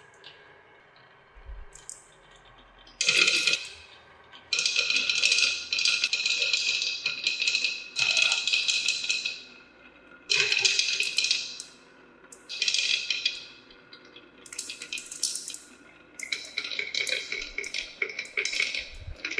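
Marbles rolling and clattering down a plastic marble run, in several bursts of a second to a few seconds with short gaps between them.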